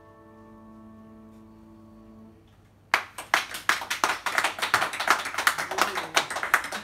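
Final grand-piano chord ringing on and fading away, then after a brief hush an audience bursts into applause about three seconds in, clapping steadily to the end.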